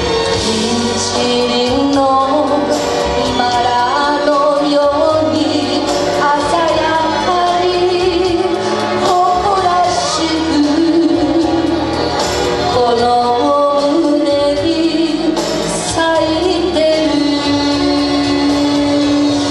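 A woman singing into a handheld microphone over instrumental accompaniment, amplified on stage.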